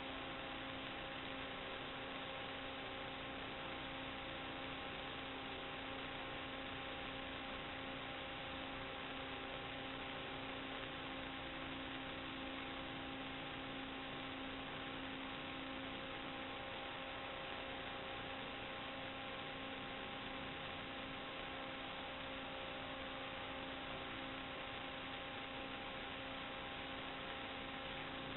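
Steady electrical hum over a flat, dull hiss, unchanging throughout. This is the audio track of an analog FPV video receiver's DVR recording, carrying only static and hum rather than sound from the plane.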